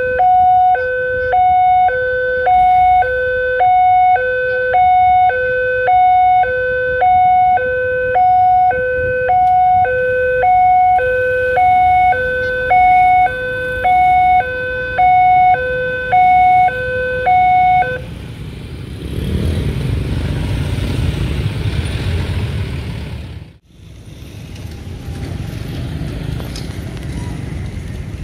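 Railway level-crossing warning siren sounding a fast two-tone electronic alarm, a lower and a higher tone alternating about once a second, which signals that the crossing is closed for a train. It keeps going while the barrier rises and cuts off about 18 seconds in. After that, road traffic with motorcycles rumbles across the reopened crossing, broken by an abrupt cut about 23 seconds in.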